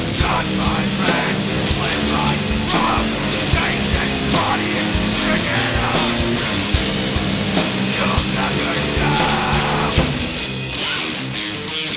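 Sludge metal / hardcore band playing: distorted guitar and bass over a steady drum beat, the sound thinning a little near the end.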